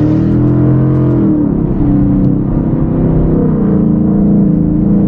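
2024 Ford Mustang GT's V8 heard from inside the cabin as the car accelerates: the engine note is high at first, falls away about a second in, then runs steady at cruising revs.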